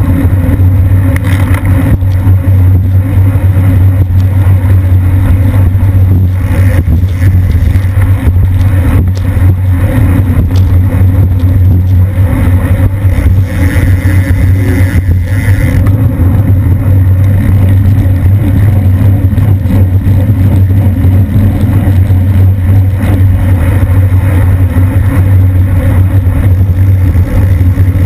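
Wind rushing over the microphone of an action camera on a racing bicycle at about 25 mph: a loud, steady, low rumble.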